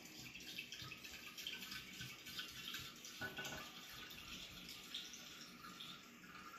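Red wine pouring from a glass bottle into a glass decanter: a faint, continuous liquid trickle and splash.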